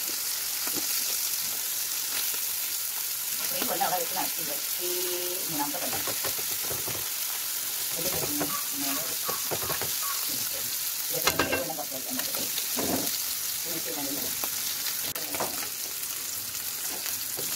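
Masala-coated sardines sizzling steadily in hot coconut oil in a pan, nearly cooked on both sides. One sharp tap about two-thirds of the way through.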